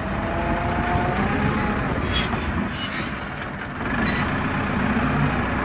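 Tractor engine running steadily, with a faint wavering whine early on and a few short clanks partway through.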